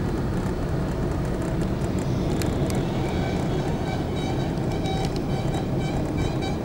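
Steady road and engine rumble of a moving car, heard from inside the cabin, with surrounding traffic. About three seconds in, a high beeping repeats rapidly for a few seconds.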